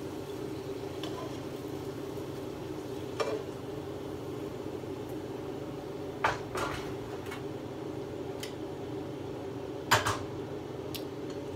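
Metal kitchen tongs clinking against a frying pan and dishes: a handful of sharp knocks, the loudest about ten seconds in, over a steady low hum.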